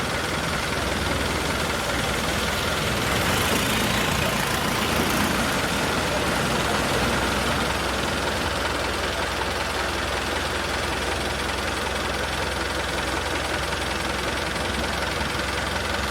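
An engine running steadily, a constant drone with a low hum underneath.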